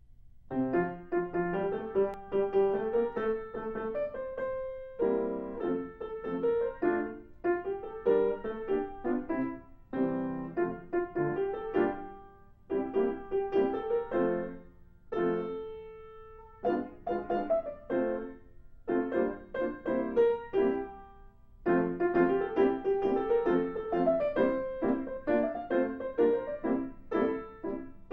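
Piano music playing a light melody in short phrases, with brief pauses between them.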